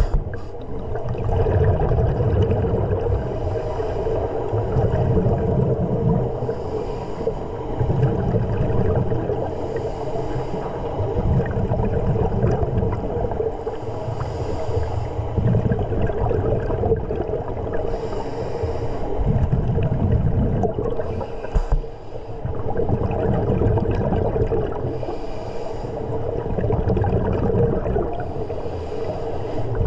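A scuba diver breathing through a regulator underwater, in a steady rhythm of one breath every three to four seconds. A short hiss of inhaling alternates with a longer, low bubbling rumble as exhaled air leaves the regulator. A steady low hum runs underneath.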